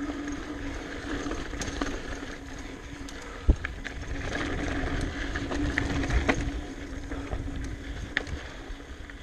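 Mountain bike riding over dry dirt singletrack: a steady rumble of tyres and wind noise on the microphone, with scattered rattles and clicks from the bike over bumps. A sharp knock comes about three and a half seconds in.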